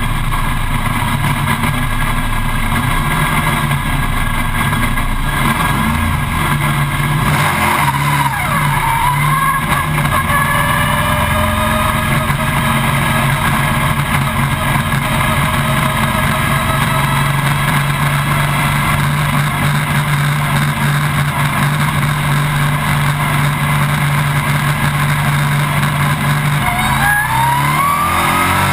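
Stock car's V8 engine, heard from inside the cockpit, running at a steady held rev during a pit stop, then revving up with a rising pitch in the last couple of seconds as the car pulls away.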